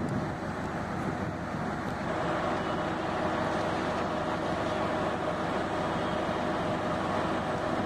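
Diesel engine of a standing diesel multiple-unit train's power car running steadily, a continuous mechanical drone with a faint steady hum in it.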